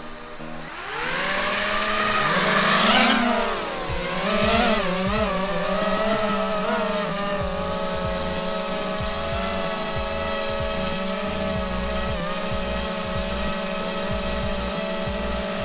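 DJI FPV drone's motors and propellers spinning up about a second in, whining with a pitch that swings up and down for a few seconds as it manoeuvres, then holding a steady whine.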